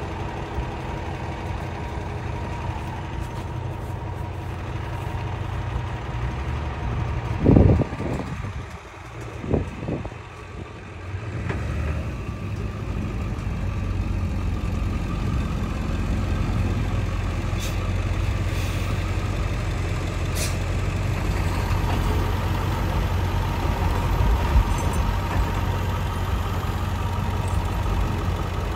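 Heavy truck engine idling steadily, with one loud low thump about seven and a half seconds in.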